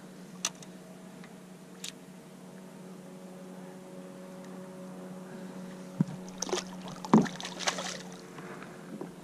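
Small cutthroat trout released beside a kayak: a steady low hum throughout, two sharp clicks early, then a cluster of knocks and splashes about six to eight seconds in as the fish goes back into the water, the loudest about seven seconds in.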